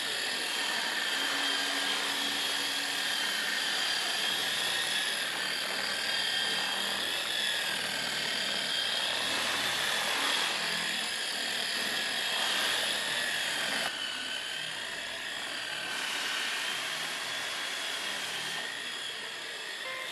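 Electric paint polisher (buffer) running steadily, its motor giving a high whine that wavers slightly in pitch.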